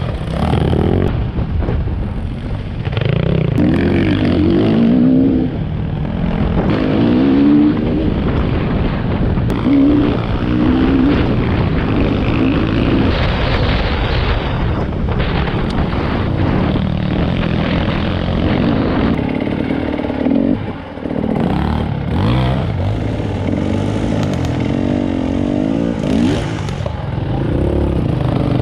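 Enduro dirt-bike engine revving up and down as it is ridden along a rough forest trail, its pitch rising and falling with each burst of throttle, easing off briefly about three-quarters of the way through.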